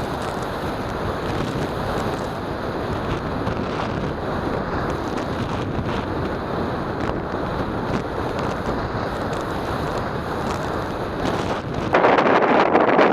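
Strong wind buffeting the microphone: a steady rushing noise with a low rumble. It switches abruptly to a brighter hiss near the end.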